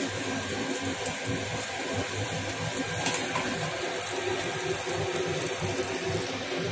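Achu murukku batter on an iron rose-cookie mould deep-frying in hot oil: a steady bubbling sizzle.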